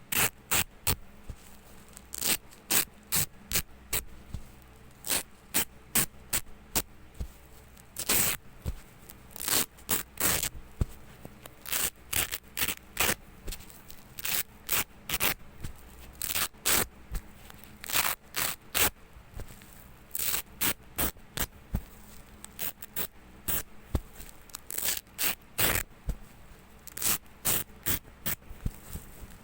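Velcro hook-and-loop tape being ripped apart over and over in short, sharp tears, about one or two a second, some coming in quick pairs.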